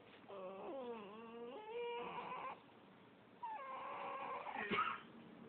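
West Highland white terrier crying: two long whines that waver up and down in pitch, with a sharp click near the end of the second.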